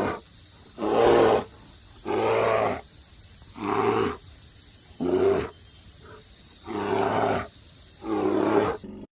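A large animal calling in a series of seven loud, evenly spaced roaring calls, each under a second long, with a steady hiss between them; the sequence cuts off abruptly near the end.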